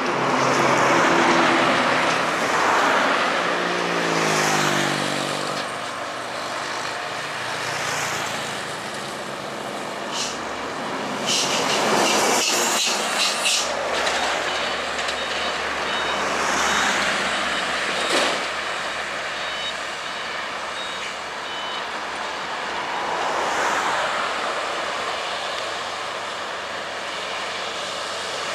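Roadside traffic on an uphill highway: heavy trucks and other vehicles pass one after another, their engines running under load, with swells as each goes by. About four seconds in, one engine's pitch falls as it passes, and a brief hissing burst comes near the middle.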